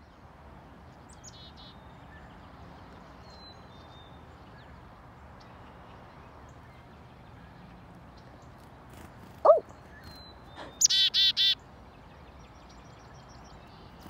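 Black-capped chickadee giving its chick-a-dee call about three quarters of the way in: a high falling note followed by three or four buzzy dee notes. This is the loudest sound. A short lower squeak comes just before it, and a few faint high chirps sound over a steady outdoor background.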